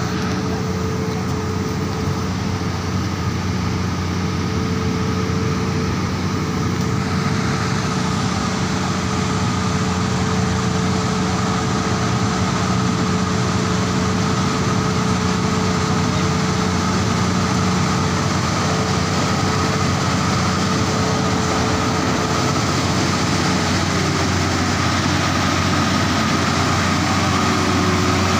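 Heavy diesel engines of a wheel loader and MAN TGS 40.440 6x6 tractor units working hard under load as they haul a 95-tonne transformer up a steep grade. A steady deep drone with a higher whine over it grows slowly louder as the vehicles approach.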